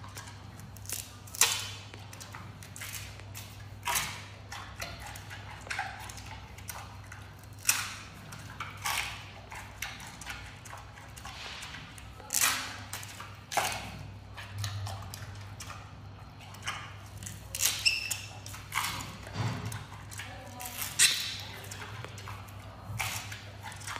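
Giant panda biting, tearing and chewing bamboo shoots: irregular crisp cracks and crunches as the fibrous shoot and its husk split between its teeth, a few much sharper snaps among them. A steady low hum runs underneath.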